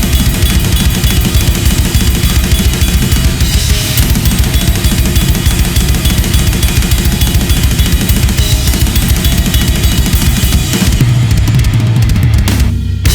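Gretsch USA Custom drum kit (kick, toms, chrome-over-brass snare and cymbals) played hard along with a backing music track. There is a brief break just before the end.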